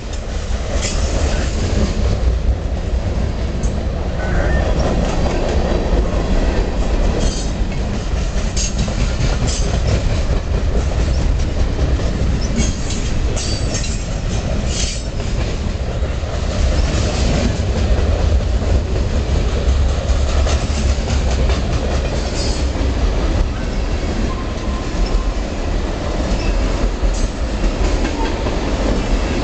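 Freight train cars rolling past close by: boxcars and lumber cars, then tank cars. They make a steady rumble with irregular clacking and knocking of wheels over the rail joints.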